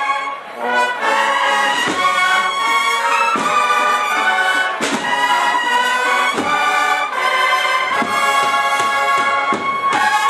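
Cornet and drum band (banda de cornetas y tambores) playing a Sevillian Holy Week processional march: massed cornets sounding held chords over regular drum strokes, with a brief dip in volume about half a second in.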